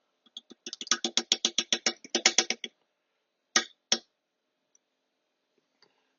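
Rapid, even metallic clicking, about eight clicks a second for roughly two seconds, then two sharp clicks: tool work on a valve spring compressor while fitting a valve spring on a 1AR-FE cylinder head.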